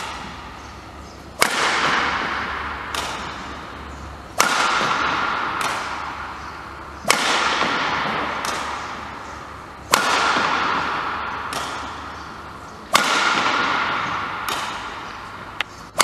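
Badminton smashes: a sharp crack of racket striking shuttlecock about every three seconds, each ringing on in the long echo of a large sports hall, with a fainter hit shortly before each one.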